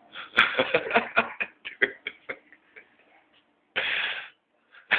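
A dog's claws clattering and skittering rapidly on a hard floor as it spins chasing its tail, the taps thinning out after about two seconds, with a short rush of noise near the end.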